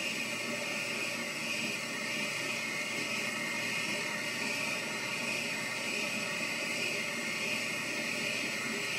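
Wabeco bench lathe running steadily while its turning tool cuts a white acetal rod, making an even whirring noise as a continuous curly chip comes off.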